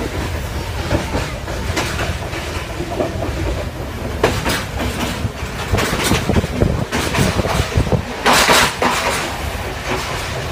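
Passenger train running, heard from inside the carriage: a steady rumble with the wheels clattering over rail joints at uneven intervals, and the rush of air through an open window. A louder rushing surge comes about eight seconds in.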